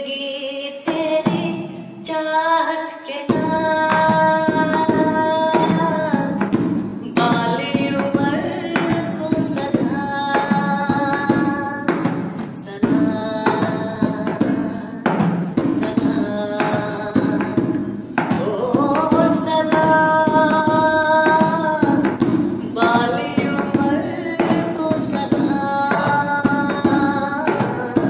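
A man singing a Hindi film song in long held notes, with a steady percussion accompaniment that comes in about three seconds in.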